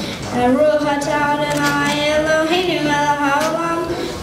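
Singing: a voice holds long notes one after another, shifting pitch between them.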